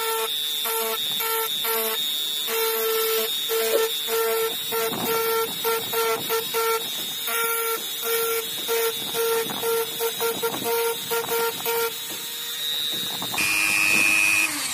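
Digital Craft handheld rotary tool whining at high speed while a fine bit engraves letters into glass. Through the middle the whine breaks up into quick pulses, several a second. Near the end it gives way to a steadier, higher whine.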